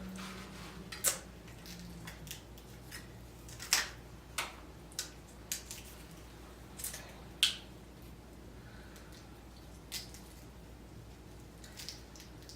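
Seafood-boil shells being cracked and picked apart by hand, with wet squishing eating sounds: a dozen or so sharp, irregular cracks and clicks.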